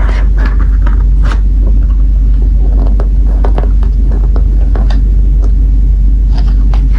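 A steady, loud low rumble, with scattered short clicks and crinkles of sticker sheets and packaging being handled.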